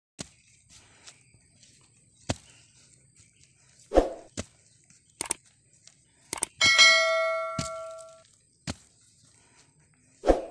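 A bright bell ding, the notification chime of a subscribe-button animation, rings out for about a second and a half just past the middle, right after a click. Scattered sharp clicks and knocks are heard before and after it.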